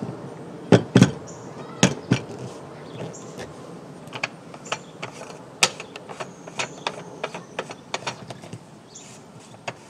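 A power cord's plug being pushed into a truck camper's power inlet and its locking collar twisted on: four sharp plastic clicks and knocks in the first two seconds or so, then a run of lighter clicks and scrapes, with one more click near the end.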